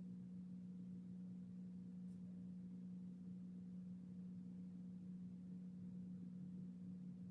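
Quiet room tone with a steady low electrical hum and a faint tick about two seconds in.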